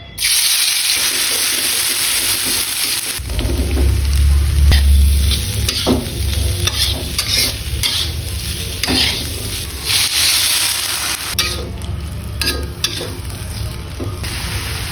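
Food sizzling in a hot frying pan while a spatula stirs and scrapes against the pan. A low rumble joins about three seconds in.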